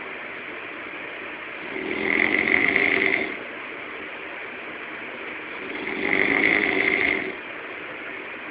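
A man snoring loudly: two long snores about four seconds apart, each lasting about a second and a half, with a steady hiss between them.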